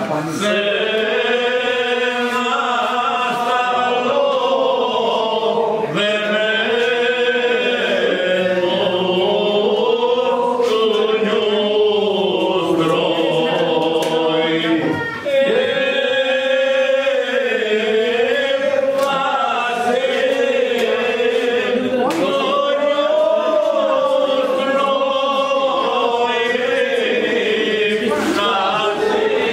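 Several voices singing together in a slow, chant-like melody, with long held notes that bend up and down. There is a brief break about halfway through.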